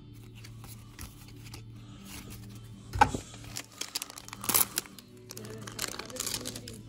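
Trading card packs and cards being handled, crinkling, with a sharp tap about three seconds in and a louder crinkle about four and a half seconds in, over faint background music.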